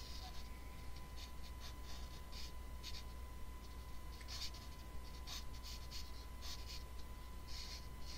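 Marker pen drawing on paper: a string of short, quick scratchy strokes.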